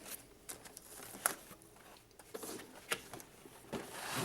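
Cardboard box and plastic packaging being handled as a toy is pulled out: scattered rustles and crinkles with a few sharp clicks and knocks, the sharpest about a second in and again near three seconds.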